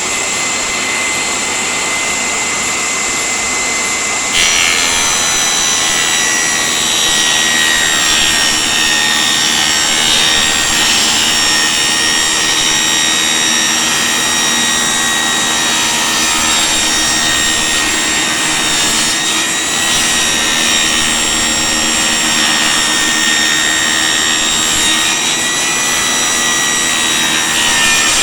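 Table saw running with a steady high whine, cutting a length of interior door trim freehand. About four seconds in the sound changes and grows a little louder as the cut proceeds.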